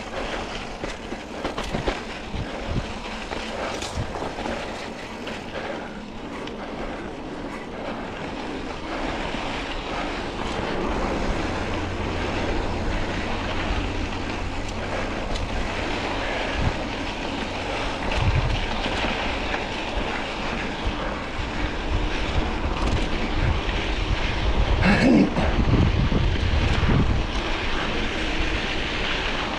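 Mountain bike rolling down a dirt and gravel trail: the knobby tyres hissing and crunching over the ground, scattered rattles and knocks from the bike over bumps, and wind buffeting the microphone, growing louder as the bike gathers speed.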